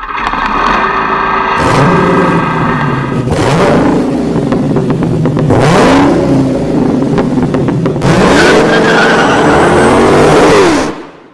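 Car engine revving hard again and again, its pitch rising and falling, with a rush of noise every two to three seconds. It opens on a steady high whine and cuts off near the end.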